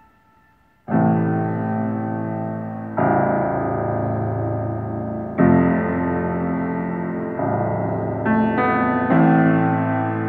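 Shigeru Kawai grand piano played solo: after about a second of quiet, slow chords are struck and left to ring, changing every two seconds or so, with a few higher notes near the end.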